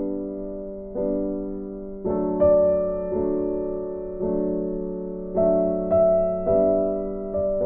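Background piano music: slow chords, struck about once a second and left to ring and fade.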